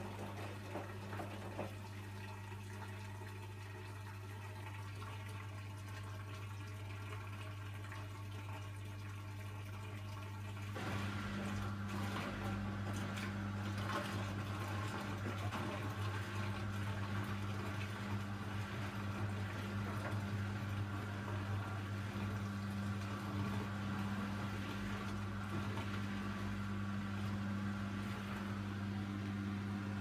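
Hoover Dynamic washing machine draining: the drain pump hums steadily while water gurgles out, getting louder about eleven seconds in. This is the drain of the wash water before the first rinse.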